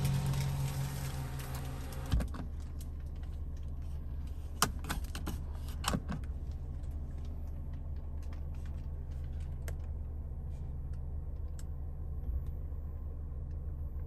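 Music fades out over the first two seconds, then scattered sharp clicks and taps over a steady low hum.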